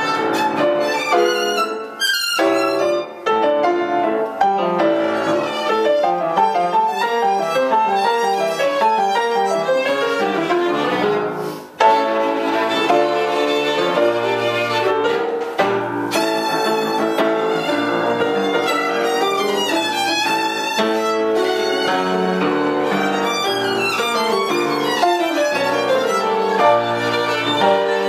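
Violin and grand piano playing together in a live duo, with many quick-moving notes and a brief break about twelve seconds in.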